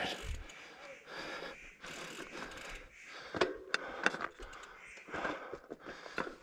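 A mountain biker breathing hard close to the camera's microphone while standing over the bike, with a few sharp clicks from the bike about three to four seconds in.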